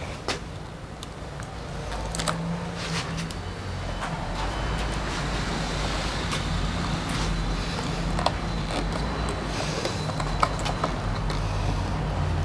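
A motor vehicle's engine running with a steady low rumble that builds over the first few seconds and then holds, with scattered sharp clicks and taps on top.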